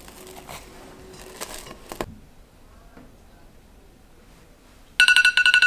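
Plastic cling wrap crinkling and snapping as it is stretched over a glass mixing bowl. About five seconds in, a smartphone timer alarm sounds: a loud, fast, repeating beep that cuts off abruptly, marking the end of the dough's rest.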